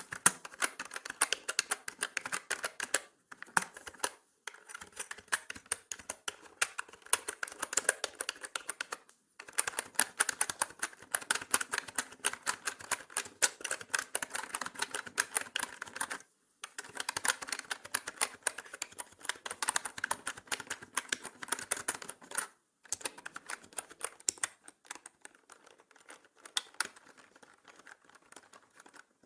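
Typing on a mechanical keyboard: fast runs of key clicks with short pauses between bursts, getting sparser near the end.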